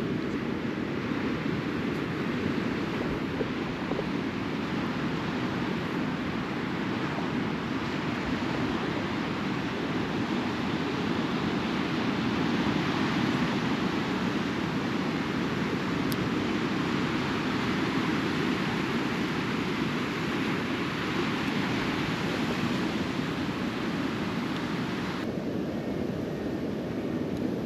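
Sea surf of the incoming tide washing steadily up a shingle-and-rock beach, with some wind on the microphone; the higher hiss thins out near the end.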